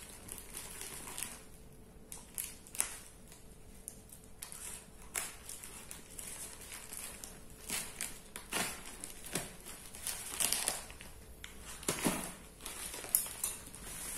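Packing tape being picked at and peeled off a plastic-wrapped parcel: irregular crinkling of the plastic wrap with short ripping sounds, busier in the second half.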